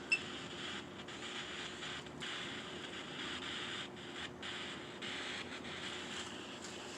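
Steady low hiss with a faint steady hum: quiet room tone.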